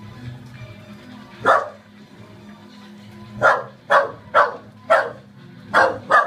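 Excited dog barking at snack time: one bark about a second and a half in, then a run of six barks, about two a second, near the end.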